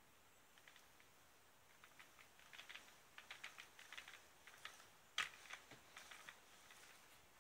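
Cat playing under an upturned plastic step stool: faint, irregular clicks and scratches of its paw and claws against the plastic and the floor sheet, with one sharper knock about five seconds in.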